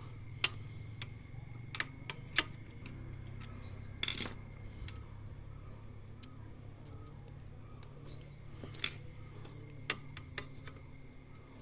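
Scattered light metallic clicks and taps, with a short scrape about four seconds in, as rubber washers are worked by hand onto the center stand pivot of a Honda scooter, a fix for a stand that rattles when the scooter accelerates.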